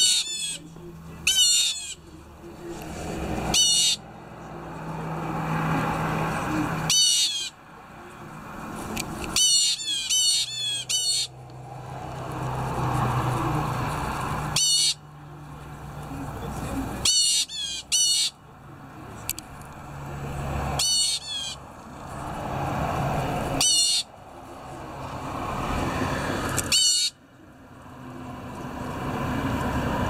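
Blue jay calling: harsh, scratchy 'jay' calls given in short runs of one to four, repeated every few seconds. Between the runs a rushing background noise swells and then cuts off abruptly.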